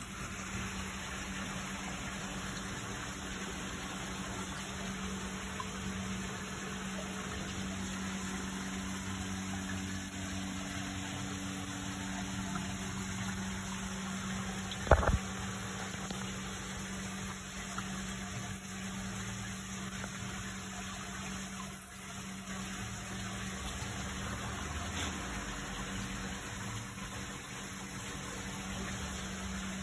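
Steady water running in a koi holding tub setup, with a steady low hum under it and one sharp click about halfway through.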